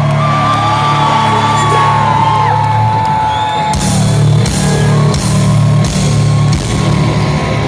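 Rock music at concert volume, heard in the hall: long held notes over a steady bass. About four seconds in, loud drum and cymbal crashes start, roughly one to one and a half a second.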